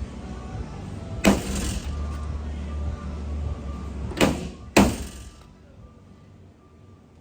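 Three sharp metal impacts of paintless dent repair tools working a damaged truck panel, one about a second in and two close together near the middle, each ringing on briefly. A steady low hum underneath fades out after the last strike.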